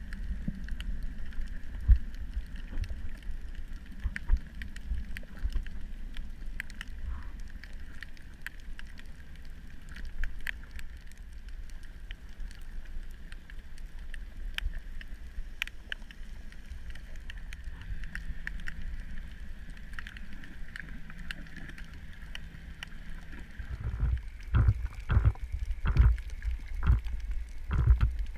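Underwater ambience: a steady low rumble with many scattered sharp clicks, and a run of loud low bursts in the last few seconds.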